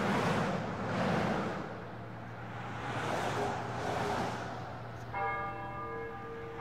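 Motorway traffic on a wet road, tyres hissing in swells as cars pass. About five seconds in, a bell begins ringing, its deep tone with several higher overtones held and struck again.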